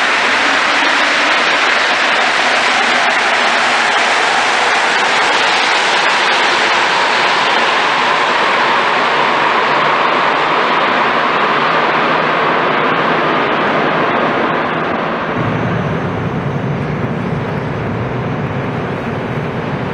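Rubber-tyred Montreal Metro train pulling out of the station, a loud rushing noise that thins and fades as it goes into the tunnel. About fifteen seconds in, the sound changes suddenly to a steady lower rumble.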